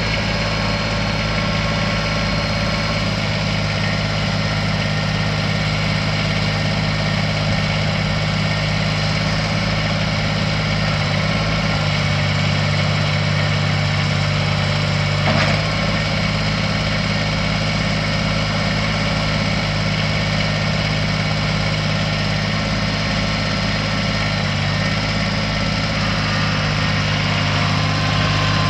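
Kubota D902 three-cylinder diesel engine of a compact tractor idling steadily, with one brief knock about halfway through.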